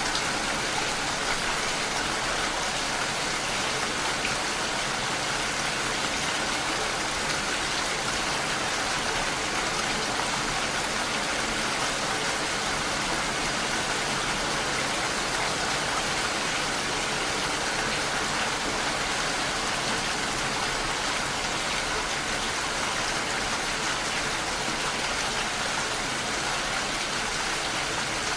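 Steady, heavy rain falling: a dense, even hiss of countless drops that stays the same throughout.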